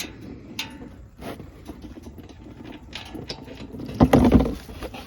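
Small clicks and scrapes of hand and tool work at the hot oil drain plug of a Honda Pioneer 700 side-by-side, with one louder, noisy rush about four seconds in that lasts about half a second.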